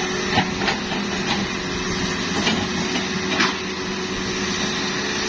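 Hitachi excavator's diesel engine running steadily, with a few sharp knocks spread through it.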